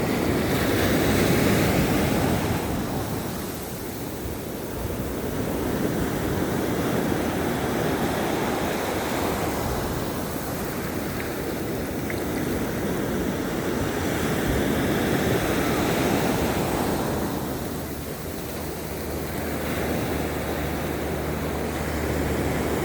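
Ocean surf washing up on a beach, the rush swelling and easing every several seconds. A low steady hum comes in about three-quarters of the way through.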